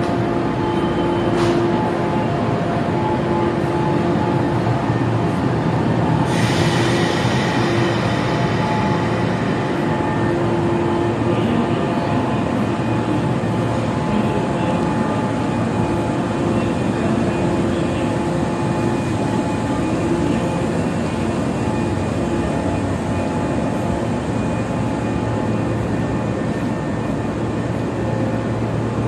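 Electric commuter train standing at the platform, its onboard equipment giving a steady hum. About six seconds in there is a hissing burst that lasts a few seconds.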